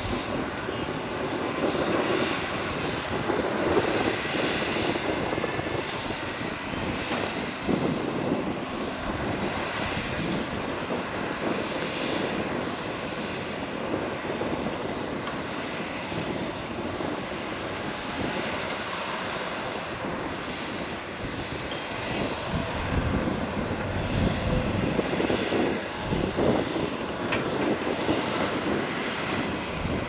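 Diesel engines of Matador and Volvo hydraulic excavators running steadily under load as they dig soil and load it into dump trucks, with occasional short knocks and rumbles from the work.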